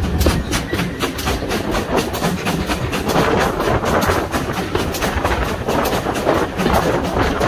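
Steam-hauled passenger train running, heard from the train: a quick, even beat over a steady rumble.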